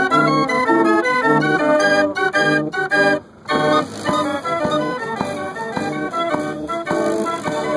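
1912 North Tonawanda band organ playing a tune on its pipes, with drum strokes keeping time. The music breaks off for a moment about three seconds in, then carries on.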